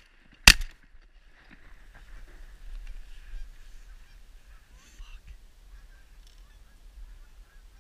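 A single shotgun blast about half a second in, followed by Canada geese honking faintly and irregularly as the flock flies off.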